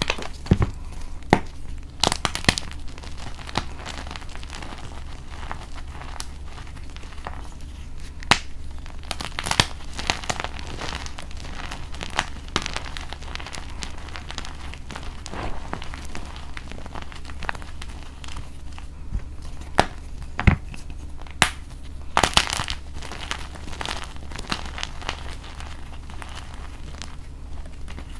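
Reformed gym chalk blocks coated in Holi powder being crushed and crumbled by hand, giving irregular dry crunches and crackles with occasional sharper snaps.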